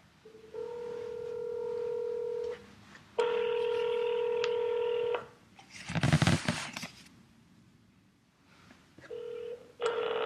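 Telephone ringing heard over the line as the call connects: two steady ringing tones of about two seconds each, a brief noisy crackle around six seconds in, then a short beep and another tone starting near the end.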